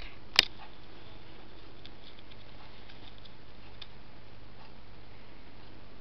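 Quiet room tone with a steady low hum, broken by one sharp click about half a second in, then a few faint, irregular ticks.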